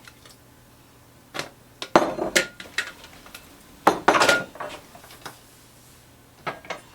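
Metal kitchen utensils clinking and knocking against a pot in short clattering bursts, loudest about two seconds in and again about four seconds in, with a brief metallic ring.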